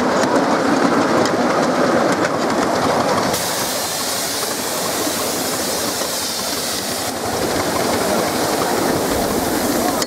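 Miniature steam locomotive hauling a riding car along a raised track, its wheels running over the rails, with a steam hiss starting about three seconds in.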